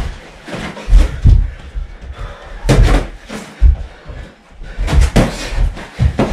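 Boxing gloves landing punches during sparring, with feet thudding on the floor: an irregular run of sharp slaps and heavy thumps, some in quick pairs.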